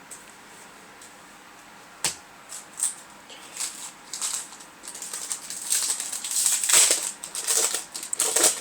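Foil trading-card booster pack crinkling and crackling as it is torn open and handled, with a single sharp click about two seconds in and the crinkling thickest in the second half.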